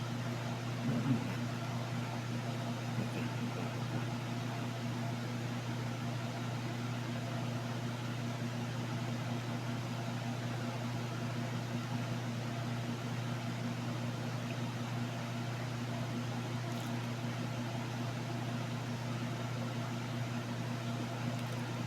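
Steady low mechanical hum, as of a small motor running, with one brief faint sound about a second in.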